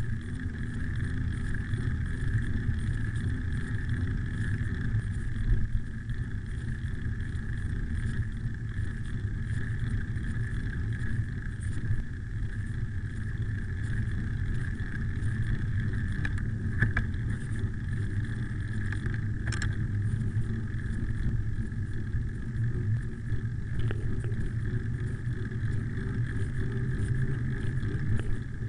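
Wind rushing over a handlebar-mounted camera's microphone and the low rumble of bicycle tyres rolling fast downhill on an asphalt road, with a steady faint high whine and a couple of brief rattles over bumps.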